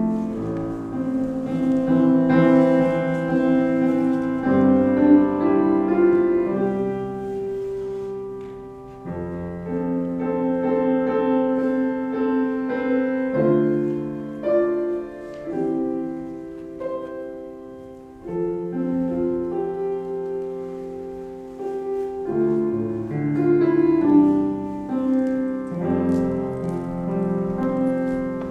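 Solo piano playing slow, sustained chords and melody, each change of chord ringing on into the next.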